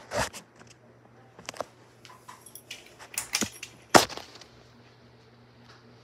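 Ceiling fan pull-chain switch and its metal bead chains clicking and rattling as the light is switched on: a series of sharp clicks, the loudest about four seconds in. A faint low hum from the running fan motor lies underneath.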